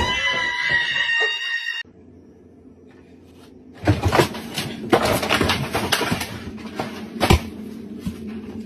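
Loud knocks and a crash as a man crouched on top of a refrigerator falls and the freezer door swings open, with the heaviest bang near the end. Before this comes a high, held sound that cuts off suddenly.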